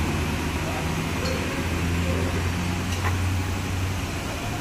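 Steady low mechanical hum of running machinery, with light background noise.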